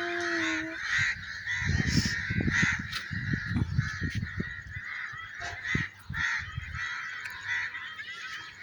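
A large flock of birds calling together in a continuous, dense chatter. A short steady tone sounds at the very start, and irregular low thumps run through the middle.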